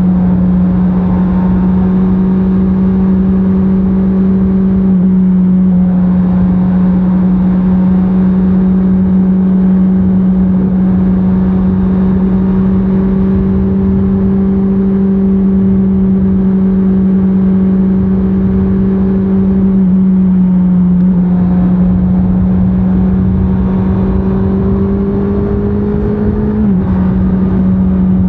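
Honda CBR650R's stock inline-four engine pulling at a steady cruise, heard from the rider's position. Its pitch dips slightly a couple of times, and near the end it climbs and then drops suddenly.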